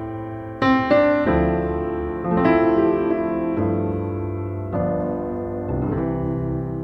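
Background piano music: slow chords struck about once a second or so, each ringing and fading.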